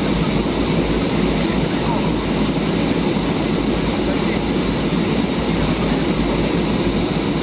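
Steady aircraft engine noise with a constant high whine over it.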